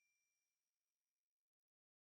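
Near silence: the last faint trace of a bell's ring fades out in the first half second, then total silence.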